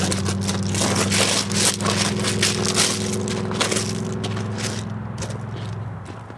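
Dense, irregular crunching and crackling of dry vegetation being trampled close by, over a steady low hum that fades out near the end.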